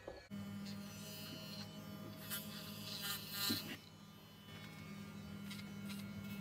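Corded electric hair clippers buzzing steadily against the head, getting louder and harsher for about a second near the middle.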